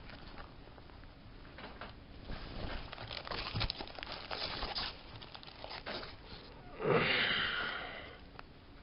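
Hand rummaging in a drawstring bag of Pokémon booster packs: the bag's fabric and the foil packs inside rustle and crinkle, with a louder rustle about seven seconds in.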